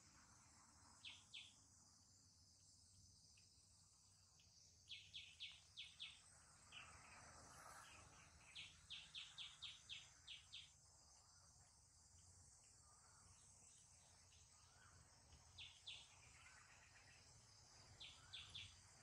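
Faint outdoor background: a steady high insect drone with short chirps in runs of two to seven, the longest run of seven about halfway through.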